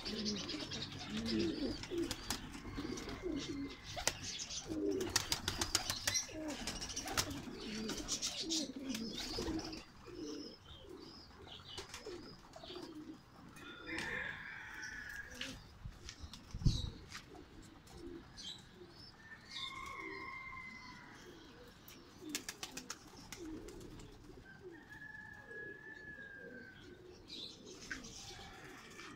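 Domestic pigeons cooing in a loft, dense low coos with bursts of wing flapping through the first part, thinning out later. Higher chirps of other small birds come in now and then, and there is one sharp knock a little past the middle.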